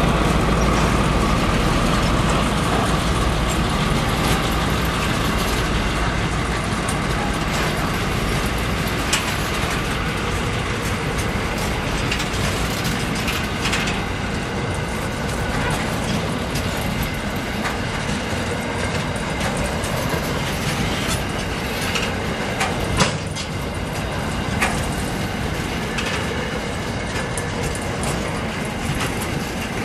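Empty ballast hopper wagons of a freight train rolling past, their wheels clattering steadily over the rails with sharp clicks now and then and one louder knock about three-quarters of the way through. The deep rumble is heaviest at first and eases a little as the wagons go by.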